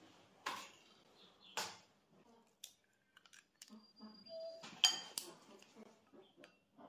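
Eggs tapped and cracked on the rim of a porcelain bowl, two sharp knocks in the first two seconds, followed by small ticks. About five seconds in, wooden chopsticks strike the bowl with a ringing clink as they begin to beat the eggs.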